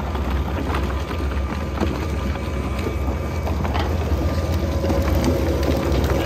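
VS-2260 plastic shredder running, its toothed rotor chewing white and green plastic waste. A steady low hum with scattered cracks and snaps as the pieces are cut.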